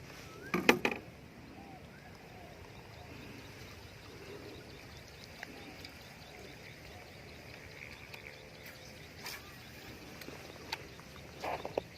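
Faint bird chirps over quiet outdoor background, broken by a short loud burst of noise about half a second in and a smaller one near the end.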